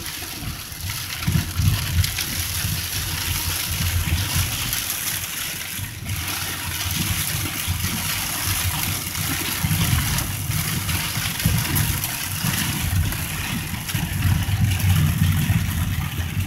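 Heavy rain beating on a car's windshield and roof, heard from inside the cabin, over the steady low rumble of the car driving on a flooded road.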